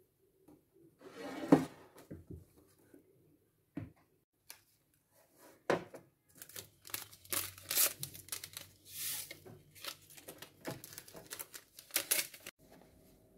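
Paper sachets of vanilla sugar being handled and torn open, a run of crinkling and ripping in many short bursts over the last half. Earlier there is a sharp knock about a second and a half in, the loudest sound, and a lighter knock a few seconds later.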